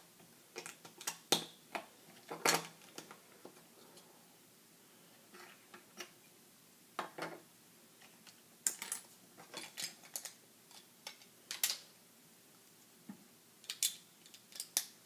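Plastic LEGO bricks clicking and tapping as pieces are handled, picked through and pressed together: irregular sharp clicks, with a quieter stretch of a few seconds in the middle.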